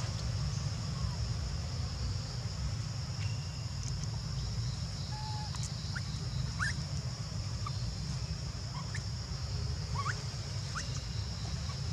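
Outdoor ambience: a steady low rumble and a steady high hiss, with about six short, faint rising chirps or squeaks from a small animal scattered through the middle and later part.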